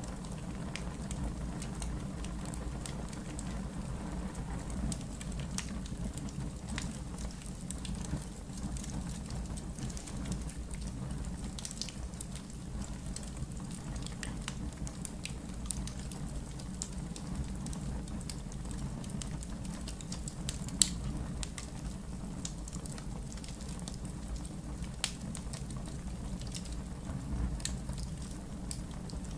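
Log fire crackling in a fireplace: a steady low sound of burning with scattered sharp pops, the loudest about 21 seconds in.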